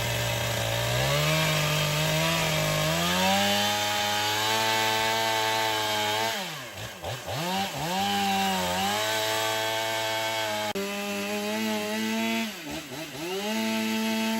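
Two-stroke chainsaw cutting through a timber log. The engine steps up in speed twice in the first few seconds and then holds a high, steady pitch. In the second half the throttle drops and picks back up several times.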